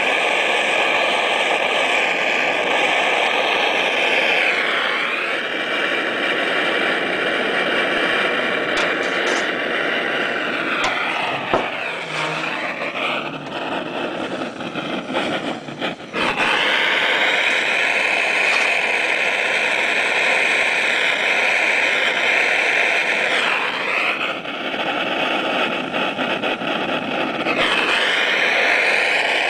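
Gas-fired soldering iron's burner hissing steadily while a zinc seam is soldered. The hiss wavers and dips a few times, and drops and turns unsteady for several seconds near the middle, with a few light clicks.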